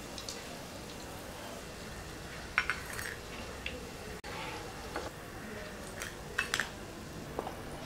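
Steel slotted spoon clinking and scraping, first against the frying pan while fried egg pieces are lifted out of the oil, then against a plastic bowl as they are tipped in: a few short clicks, in pairs around two and a half seconds in and again near six and a half seconds.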